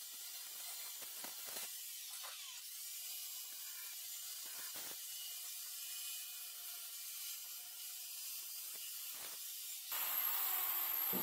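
Steady hiss of a fan running to clear tile dust, with a faint hum and a few light knocks as the porcelain tile is handled. About ten seconds in, a louder whir starts and falls in pitch.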